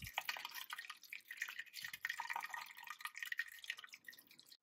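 Curds and whey being poured from a multicooker bowl into a cheesecloth-lined strainer, the whey trickling and splashing irregularly through the cloth: draining homemade tvorog (farmer's cheese).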